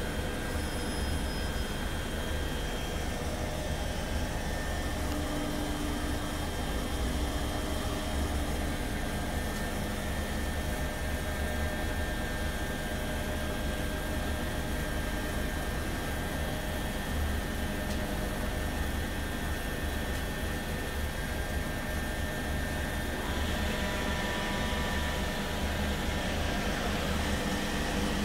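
c2c Class 357 Electrostar electric train standing at the platform, its onboard equipment giving off a steady hum and whine with a few held tones. About 23 seconds in it grows a little louder and hissier.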